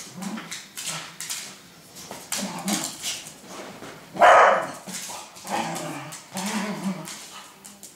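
Dogs barking and growling as they play-fight, in repeated short bouts, with one loud bark about four seconds in.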